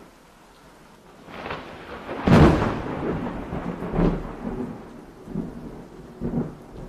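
Thunder: after a quiet first second, a rumble builds into one loud crack a little over two seconds in, followed by rolling swells of rumbling.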